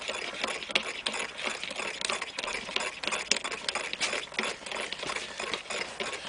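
A spoon whipping egg yolk and sugar into kogel mogel in a mug, clicking rapidly and steadily against the sides.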